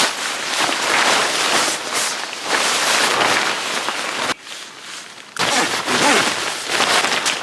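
Rustling and scuffing of tent fabric and gear being handled during tent pitching. It breaks off suddenly for about a second just past the middle, then resumes.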